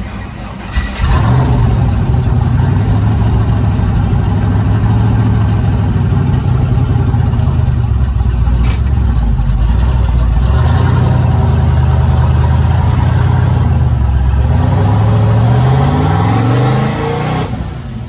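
LS V8 in a 1984 Chevy C10, heard from the cab. It jumps to a loud, steady hold about a second in and stays there for some thirteen seconds, likely staged against the trans brake. Near the end the pitch rises as the truck launches and accelerates, then drops off. A single sharp click is heard about halfway through.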